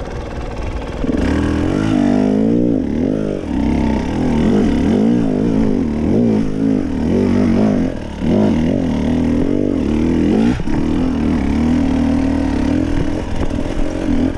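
Enduro dirt bike's engine heard close up from on the bike, revs rising and falling again and again under throttle while riding off-road, settling to a steadier note for a few seconds near the end.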